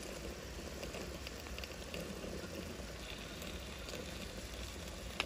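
Spiced beef stew (siga wot) sizzling low and steadily in a hot Instant Pot.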